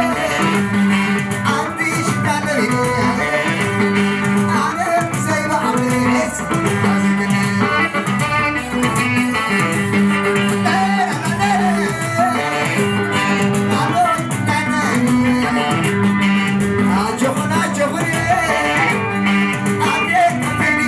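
Live band playing guayla, Tigrinya dance music, through a PA: an electric guitar leads over a steady, even dance beat.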